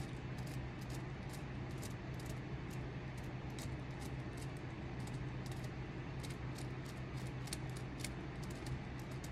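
Short, irregular scraping cuts of a hand carving tool shaving a wooden walking stick, several a second, over a steady low hum.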